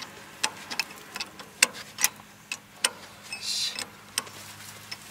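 Wrench clicking and clinking against the bolt and chain sprocket of a round baler's chain drive as the shear bolt is worked on: irregular sharp metallic clicks, with a low steady hum underneath and a brief hiss about three and a half seconds in.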